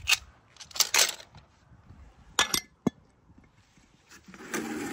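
Scallop shells clinking against one another and against a plastic colander as it is handled, in a few sharp clicks with quiet gaps between them, then a longer patch of noise near the end.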